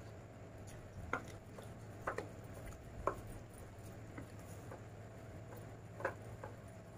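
Fingers mixing rice and chicken curry on a steel plate, with a few sharp clicks and taps against the metal, the strongest about one, two, three and six seconds in, over a steady low hum.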